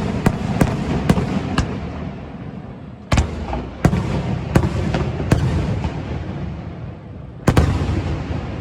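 Aerial fireworks display: a rapid run of sharp bangs and cracks. Three heavy booms, near the start, about three seconds in and near the end, are each followed by a long rolling rumble that fades out.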